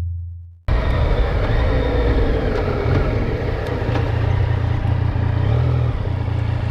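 Yamaha MT-09's three-cylinder engine running steadily while the motorcycle is ridden, with road and wind noise. It cuts in suddenly just under a second in, after a short music tail fades out.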